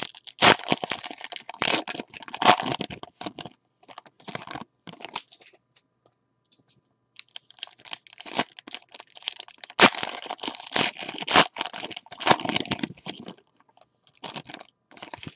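Foil wrapper of a 2018 Certified football card pack being crinkled and torn open, and the cards inside handled, in two spells of crackling and rustling with a brief lull in the middle.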